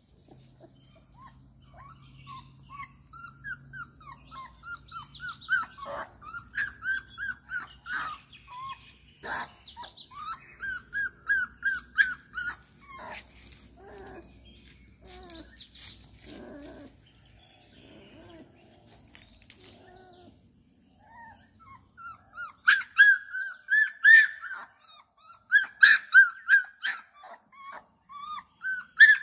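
A small puppy whimpering and yelping in repeated short, high-pitched cries that come in bunches, getting loudest and most frequent near the end.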